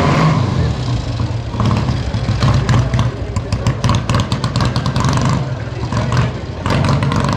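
Vintage motorcycle engines running at low speed and being blipped as the bikes are ridden slowly through a cone course, with a rapid run of sharp cracks through the middle.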